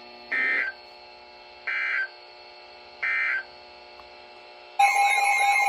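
Emergency Alert System end-of-message code: three short bursts of SAME digital data tones about 1.4 s apart, closing the flash flood warning. Near the end a loud alarm tone starts, a steady pitch with a warbling tone over it.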